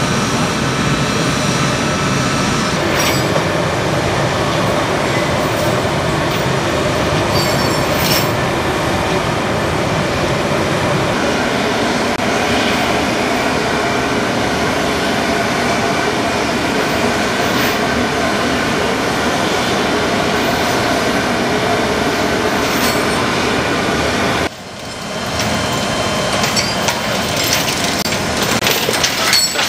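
Steady jet noise from the C-17 Globemaster III's engines, a loud even roar with a high whine running through it. About 24 seconds in it cuts off abruptly, and metal tie-down chains clink and rattle as they are handled and freed from the tank.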